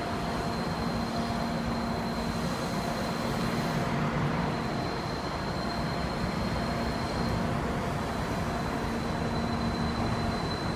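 Chikuho Electric Railway 5000-series low-floor tram running slowly in toward the platform: a steady low hum and rumble of its running gear, with no sharp events.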